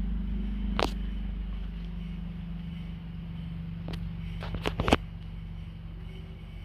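Heald horizontal milling machine running with a steady electric-motor hum, shown at different speeds. A sharp click comes about a second in, then a quick cluster of clicks around four to five seconds, after which the hum gets quieter.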